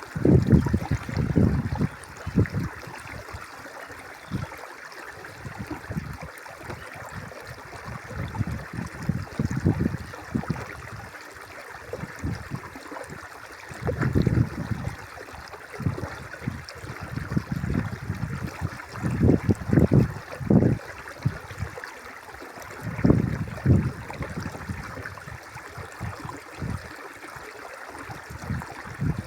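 River water flowing and murmuring in a steady rush, with irregular low rumbling surges that come and go every few seconds.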